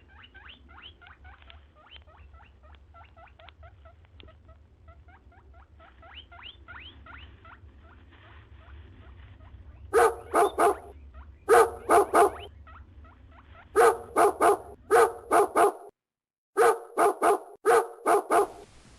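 Animal calls: a long run of quick, high, rising chirps, then loud barks in clusters of two or three from about halfway through.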